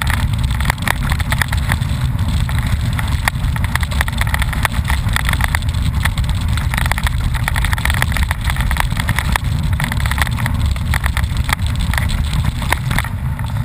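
Wind buffeting the microphone of a moving ride-along camera with a constant low rumble, over the clatter and crunch of tyres rolling on a rough, stony dirt track.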